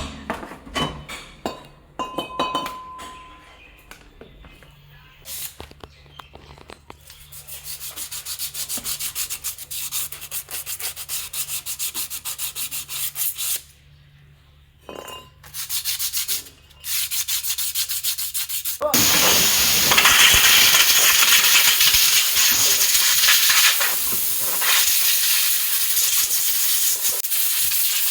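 Fast, repeated scraping strokes on metal, typical of wire-brushing or sanding brake parts, in two stretches after a few scattered clicks. About two-thirds of the way in, a loud, steady hiss starts and keeps going.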